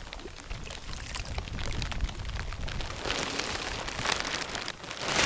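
Rain falling, with gusts of wind rumbling on the microphone; the rain noise grows louder about three seconds in.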